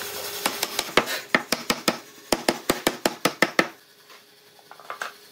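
Quick series of sharp knocks, like hammer or mallet blows on wood, about five a second with a brief pause about two seconds in, stopping a little before four seconds in.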